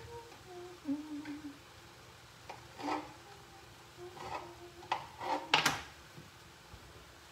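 A knife slicing smoked sausage on a cutting board: a handful of irregular knocks against the board, the loudest a quick cluster near the end. Between cuts a woman hums a few notes.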